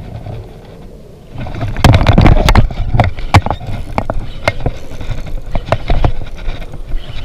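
Rumbling and rubbing on a body-worn camera's microphone with irregular sharp knocks, starting about a second and a half in: handling noise as the angler moves with rod and reel.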